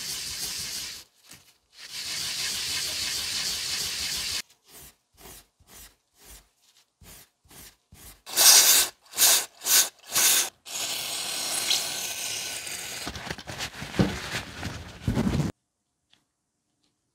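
A small round steel air-hammer part rubbed back and forth on a non-woven abrasive pad. The scrubbing starts steady, breaks into separate strokes about two a second, the loudest a little past the middle, then turns steady again and stops abruptly near the end.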